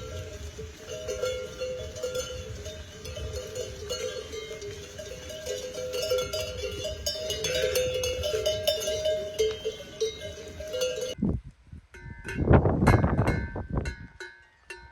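Many livestock neck bells clanking and jangling together from a grazing herd, a dense, continuous mix of overlapping bell tones. About eleven seconds in the sound cuts off suddenly, followed by a few louder, separate bursts.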